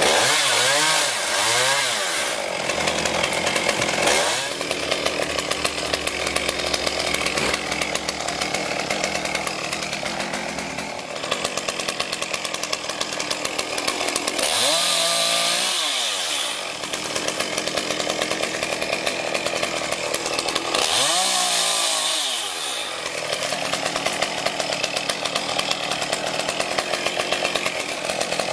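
Chainsaw engine running steadily, revved up and back down three times: at the start, about fifteen seconds in, and about twenty-one seconds in.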